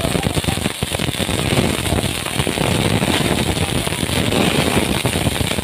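Fireworks going off close by: a dense, continuous crackle of many small pops.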